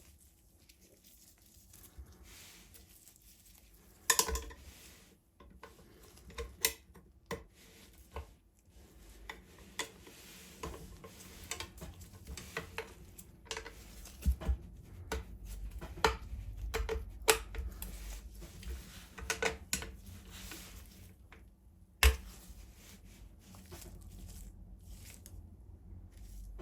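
Scattered clicks, knocks and light metal clinks of small parts being handled, with two sharp knocks standing out, about four seconds in and about twenty-two seconds in.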